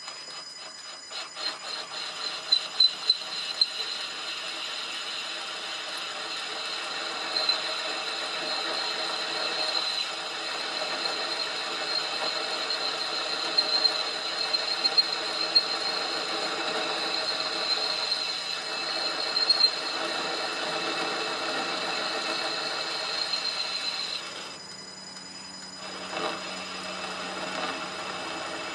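Metal lathe turning a miniature petrol-engine crankshaft between centres, the tool cutting the centre bearing journal: a steady high-pitched squeal over the running machine, with occasional sharp clicks. Near the end the squeal stops as the cut ends, and the lathe runs on more quietly.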